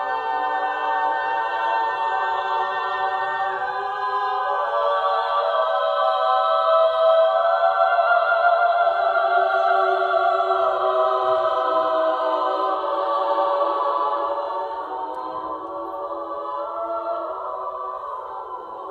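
Women's choir singing unaccompanied in a large church: long sustained chords in high voices that swell louder in the middle and soften toward the end.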